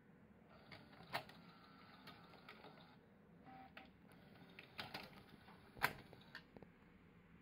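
Pioneer PD-F25A CD changer mechanism running: a small motor whirring with a series of plastic clicks and clacks as the changer moves a disc. The sharpest click comes a little over a second before the end.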